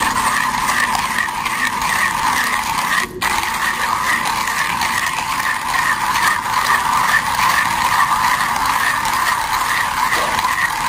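Coffee grinder running steadily, grinding beans at a fairly coarse setting; the sound cuts out for an instant about three seconds in.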